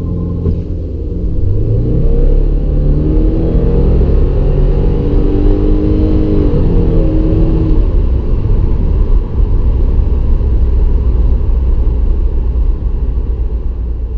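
2016 Subaru WRX's 2.0-litre turbocharged boxer four-cylinder accelerating hard from a standstill through its CVT automatic, heard from inside the cabin: the engine note climbs steadily in pitch for about six seconds. About eight seconds in the climbing note ends and a low rumble of engine and road noise carries on.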